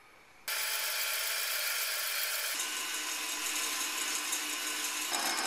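Steady whirring of a small electric motor that cuts in abruptly about half a second in and changes character twice, in spliced stretches.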